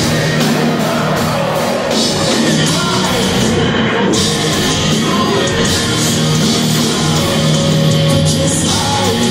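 Live rock band playing a song loudly, with heavy, distorted rock instrumentation.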